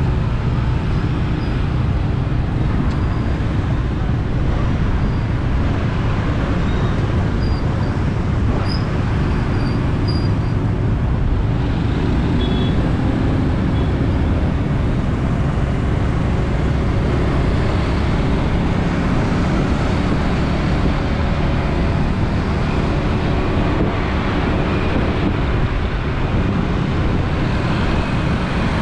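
Steady city street traffic noise, a continuous low rumble of passing motor vehicles.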